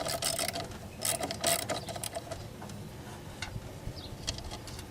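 Socket ratchet clicking as a 10 mm nut is turned off the blower motor shaft, in two quick runs of clicks in the first two seconds, then scattered single ticks.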